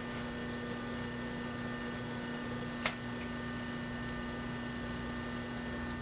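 Steady electrical mains hum, a low buzzing tone with fainter higher tones over it, plus one brief click about three seconds in.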